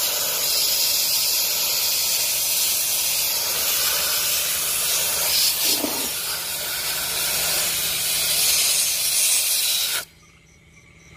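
Sandblasting gun blasting grit onto a metal water pump housing to strip it down to bare metal: a loud, steady hiss of compressed air and sand, which stops about ten seconds in.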